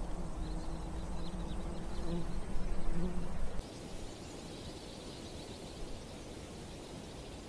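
Outdoor nature ambience. A low steady hum with faint high chirps cuts off suddenly a little over three seconds in and gives way to quieter ambience with faint high chirping.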